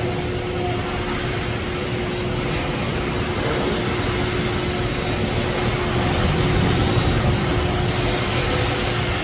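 Steady mechanical hum with a low rumble and a constant faint tone, swelling slightly around the middle.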